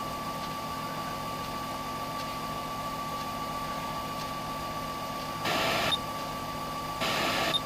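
Car stereo, powered by an ATX PC power supply, playing through a single speaker while being tuned between FM stations: a steady hiss with a thin steady whine, and two short bursts of static about five and a half and seven seconds in.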